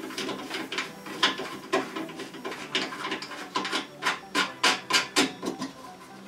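Irregular clicks and knocks of a mitre saw stand's parts being handled and fitted together during assembly, coming more often in the second half.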